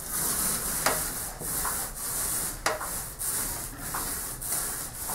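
Paint roller rolling flat white top coat across a textured drywall ceiling: a rubbing, hissing sound that swells and fades with each stroke. A couple of sharp clicks come through as the strokes turn.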